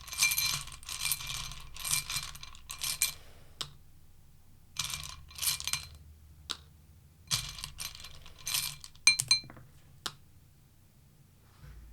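Tarot cards being shuffled and handled in several separate bursts, mixed with light metallic clinking and jingling.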